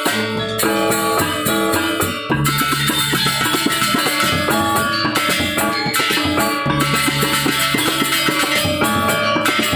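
Balinese gamelan gong ensemble playing: bronze metallophones and gongs ring over drums in dense, rapid strokes, with a brief dip in the playing about two seconds in.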